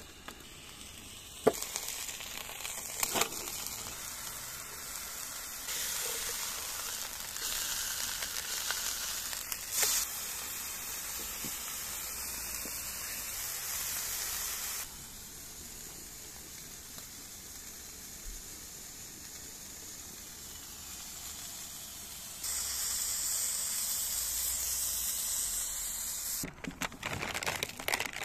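Food frying in a pan: a steady sizzle that jumps abruptly up or down in loudness several times, with a few sharp knocks in the first ten seconds.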